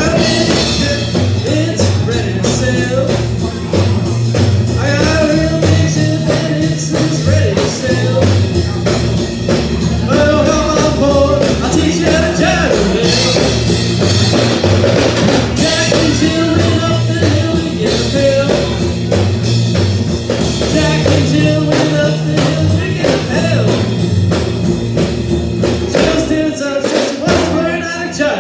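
A live band plays an up-tempo jump-blues swing number, with drum kit, bass, guitar and a wavering lead melody line. Near the end the bass and drums drop out briefly.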